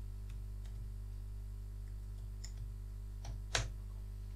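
Computer keyboard keys typed in a few scattered, light clicks, the loudest about three and a half seconds in, over a steady low electrical hum.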